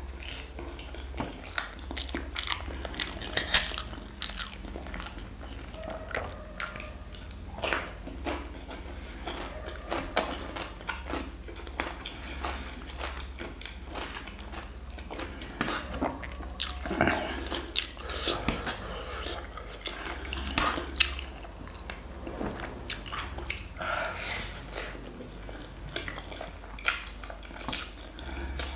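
Close-up mouth sounds of a man eating black bean noodles: chewing, wet smacks and slurps of noodles drawn in from a fork, a steady run of short clicks.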